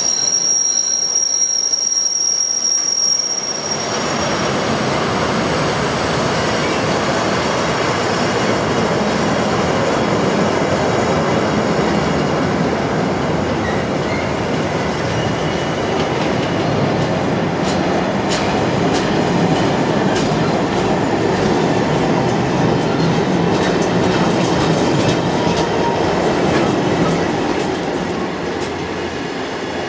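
Freight train's car-carrier wagons rolling past at close range: a high, steady wheel squeal for about the first three seconds, then the steady rumble and rattle of wheels on the track, with clicks over the rail joints in the second half. The noise eases a little near the end as flat wagons go by.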